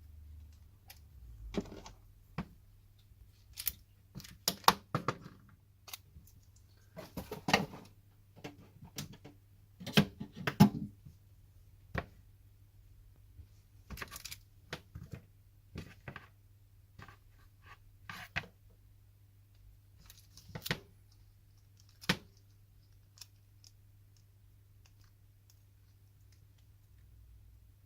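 Irregular small clicks, taps and knocks of a smartphone's parts and small tools being handled during disassembly, closely spaced in the first half and thinning out to occasional clicks, over a faint steady low hum.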